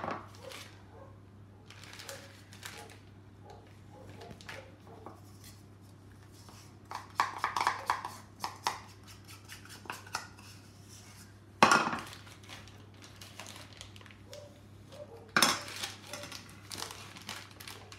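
A metal spoon clinking and scraping against a bowl in scattered bursts as icing is spooned into a piping bag, with a few sharper knocks and the crinkle of the plastic piping bag being handled.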